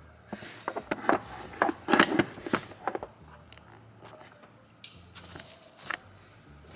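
Handling noise of plastic and rubber parts: a quick run of crunching, crackling clicks, loudest about two seconds in, then a few single clicks.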